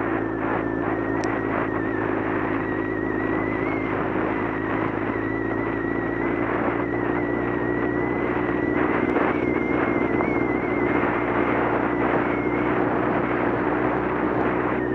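Motorcycle engine running at a steady cruising speed on a gravel road, over a constant rush of tyre and gravel noise with frequent small knocks from the rough surface. A thin, steady high whine runs above it.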